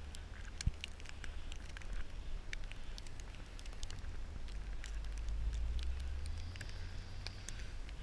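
Wind rumbling on the action camera's microphone in a snowstorm, with scattered sharp crackles and ticks. The rumble swells about two-thirds of the way through.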